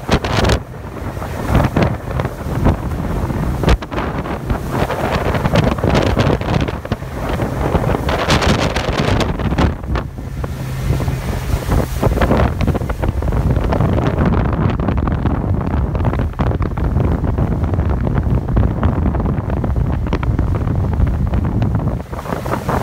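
Wind buffeting the phone's microphone in gusts as a Boston Whaler Montauk 19 centre-console runs across open water, with water rushing along the hull and a low outboard motor hum underneath at times.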